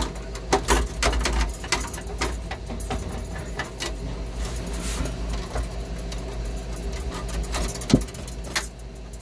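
Irregular small clicks and taps of a brass expansion valve and its copper capillary tubing being handled and positioned at an evaporator coil, over a steady low machine hum. One sharper knock about eight seconds in.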